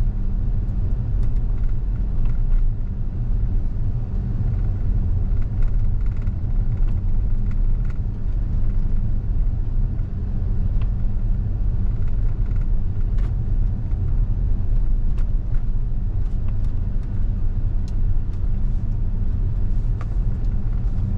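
Steady low road and tyre rumble inside the cabin of a moving Tesla, an electric car with no engine note.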